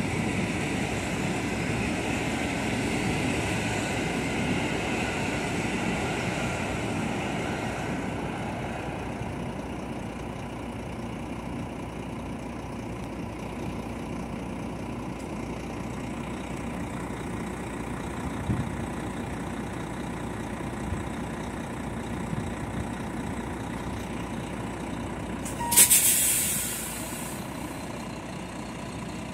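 Passenger train carriages rolling past over the level crossing, the rumble fading over the first several seconds and leaving a truck's diesel engine idling. About 26 seconds in comes one sharp, loud hiss of air that dies away within a second: the truck's air brake being released as the barriers lift.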